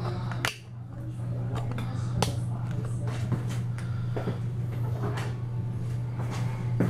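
Scattered light clicks and knocks of objects being handled, over a steady low hum.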